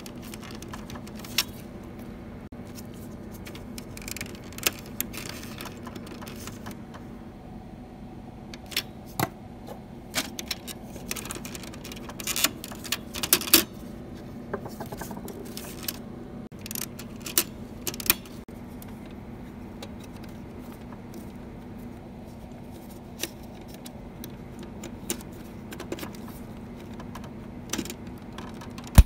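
Scattered plastic clicks, snaps and light rattling as a laser printer's rubber pick-up roller is worked off and onto its shaft and clipped into place, loosest in the middle, over a steady low hum.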